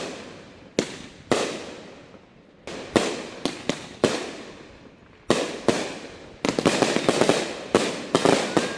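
Fireworks going off: a string of sharp bangs, each trailing off in an echoing rumble, then a quick run of many bangs close together in the last few seconds.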